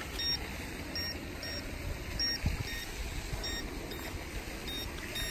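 Low-battery warning of a SGILE RC speedboat: short high beeps, mostly in pairs, repeating roughly once a second, a signal that the boat's battery is nearly flat and it must be brought back in.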